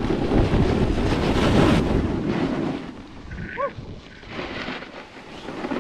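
Snowboard sliding over packed snow with wind rushing across the camera microphone, loud for the first two and a half seconds, then quieter.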